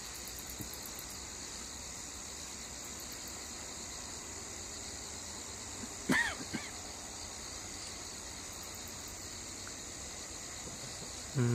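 Steady, high-pitched chorus of crickets and other night insects. About six seconds in, one short call rises and falls in pitch, with a fainter one just after it.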